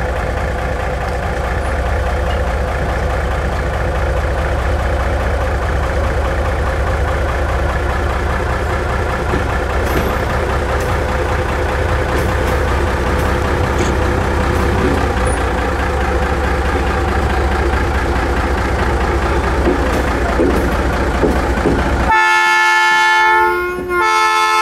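Diesel locomotive engine running with a steady low rumble. About 22 seconds in, a multi-chime train air horn sounds, several steady tones at once, with one short break near the end.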